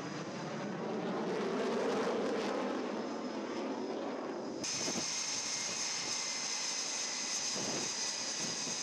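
A fighter jet passing low overhead, its noise swelling to a peak about two seconds in and then fading. A cut follows, to the steady high whine of an F/A-18 Super Hornet's jet engines running on a carrier flight deck.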